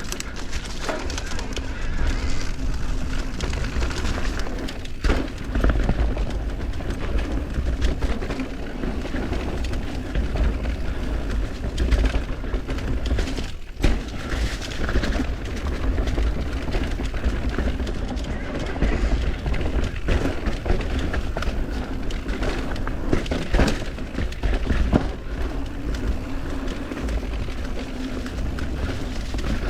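Mountain bike ridden down a dirt trail: tyre noise and wind buffeting the camera microphone, with frequent knocks and rattles of the bike over rough ground.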